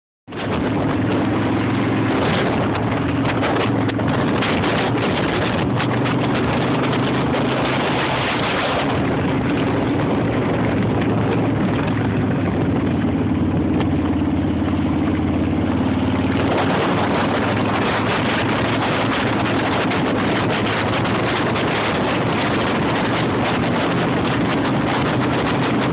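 Motorcycle engine running at a steady cruising speed, a low even drone, with wind and road noise rushing over the microphone. The wind rush eases about nine seconds in and comes back strongly about sixteen seconds in.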